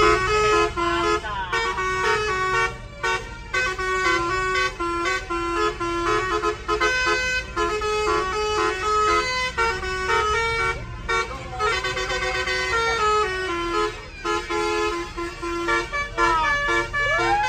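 A bus's 'telolet' musical air horn playing a tune of stepped, held notes, with swooping tones that rise and fall near the end. A low engine rumble runs underneath.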